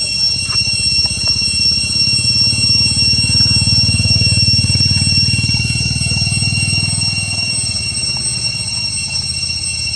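Steady high-pitched insect drone in several tones over a low rumble that swells through the middle and then fades.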